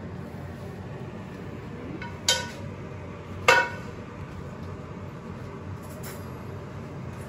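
Kitchenware clinking twice: a pan and turner knocking against a ceramic serving plate, two sharp ringing clinks about a second apart, over a steady low hum.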